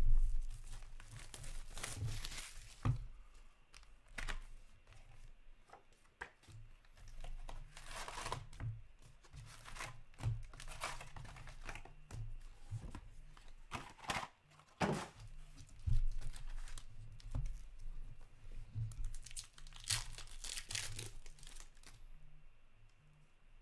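Paper and plastic packaging being torn and crinkled as a sealed box of Upper Deck hockey cards is opened and its foil packs are pulled out and ripped open. It comes as a string of short sharp rips and rustles.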